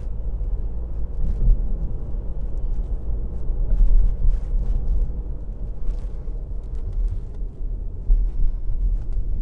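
Road and engine noise of a moving car, heard inside the cabin: a steady low rumble.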